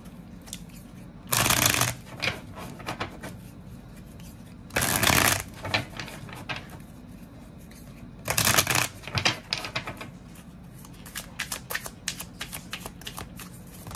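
A deck of tarot cards shuffled by hand: three loud half-second flurries of cards about three and a half seconds apart, with quick card clicks and taps between them that come faster near the end.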